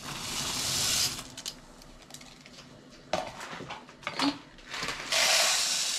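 Dry rice poured from a tub into a steel pot of hot water, a rushing pour that builds over about the first second. A few light clicks and knocks follow, then a louder rushing noise from about five seconds in.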